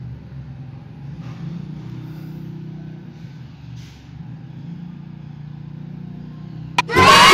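Battery-operated toy helicopter's small electric motor and gears running with a steady low hum as its rotor turns. Near the end a sharp click, then loud music starts.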